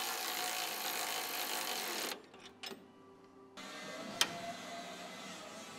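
Milwaukee M12 cordless ratchet running as it tightens the upper sway-bar-link bolt, stopping abruptly about two seconds in. After that it is quieter, with a single sharp click a couple of seconds later.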